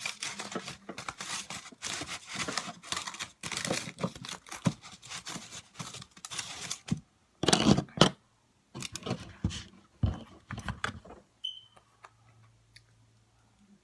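A food wrapper crinkling and rustling in rapid bursts as a burrito is put together, with two louder clatters about eight seconds in, then only scattered small handling noises.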